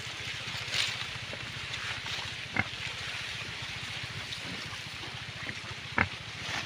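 Steady wind-like noise with a low hum underneath, and two short, sharp pig grunts, about two and a half seconds in and again about six seconds in.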